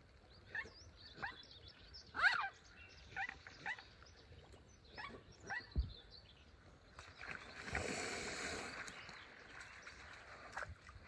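Mute swan giving a string of short nasal calls while being handled, the loudest about two seconds in. About eight seconds in comes a rushing noise of roughly two seconds.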